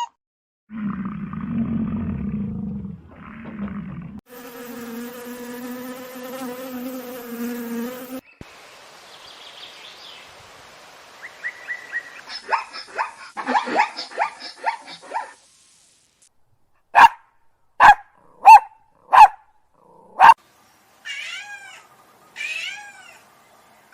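A run of different animals' calls. It starts with a low, rough growl and then a long, steady, pitched call. A patch of scattered chirps follows, then five short, sharp calls about two thirds of a second apart, and near the end a few wavering calls.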